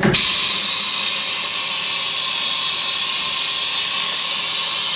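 Loud, steady hiss of compressed air from a 1995 Haas VF0 vertical machining center during an automatic tool change, starting abruptly. It is the spindle's air blast that blows the taper clean while the tool is released.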